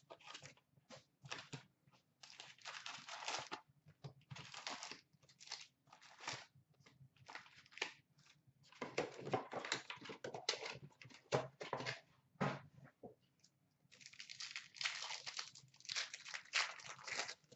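Cardboard hobby box of 2017-18 Upper Deck Series 1 hockey cards being opened and its packs lifted out, then a foil card-pack wrapper crinkling and tearing open near the end. The whole stretch is a run of irregular rustles and crackles.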